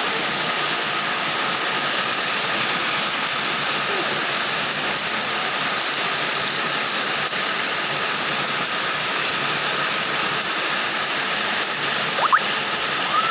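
Floodwater rushing steadily, an even loud roar of moving water. A short rising tone cuts through near the end.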